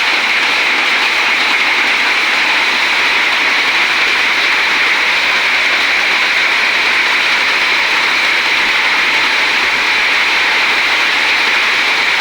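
Heavy rain pouring down, a loud, steady hiss without a break.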